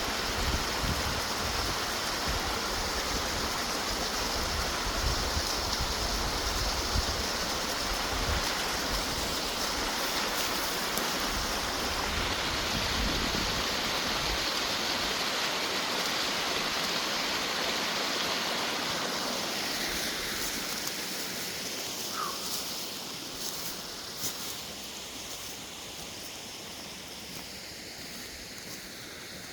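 Steady rush of falling, splashing water from a low-running mountain waterfall and a pipe pouring water out of the slope. It grows quieter from about twenty seconds in.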